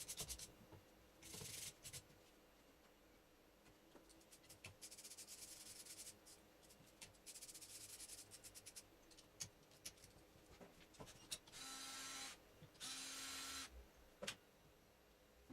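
Faint scraping and fast clicking of hand tools working on metal alternator parts while the alternator's rear cover is taken off, with two short buzzing bursts about twelve and thirteen seconds in.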